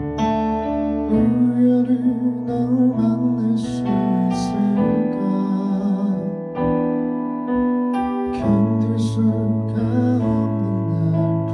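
Digital piano playing slow, sustained chords that change every second or two.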